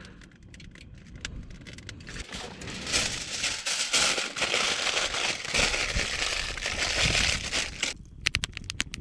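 Wood fire crackling in a split-log Swedish stove that has just caught, with a louder stretch of dense crinkling and rustling from about three seconds in, and a few sharp snaps near the end.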